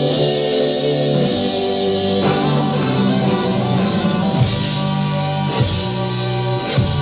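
Rock music with electric guitar chords and drums, with a few sharp drum hits in the second half.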